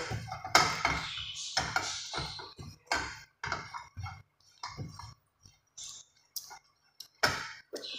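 A wooden spatula knocking and scraping in a frying pan while stirring ground nuts and raisins: irregular clatters, loudest about half a second in and busiest in the first three seconds, thinning out with short quiet gaps before a last sharp knock near the end.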